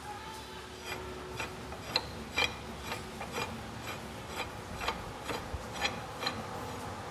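Lathe feed screw turned by its handwheel, giving irregular light metallic clicks, roughly one or two a second.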